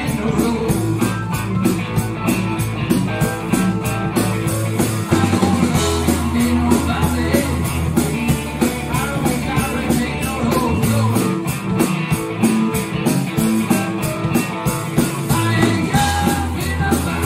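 Live rock band playing: electric guitar, bass guitar and drum kit with a steady beat.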